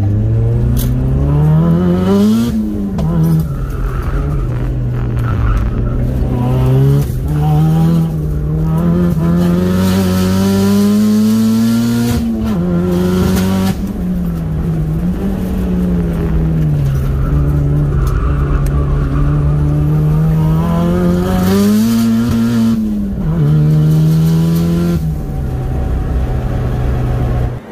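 Turbocharged Mitsubishi Lancer's 4G15 MIVEC four-cylinder engine driven hard, revving up and falling back over and over as the car accelerates and brakes, with tyres squealing at times.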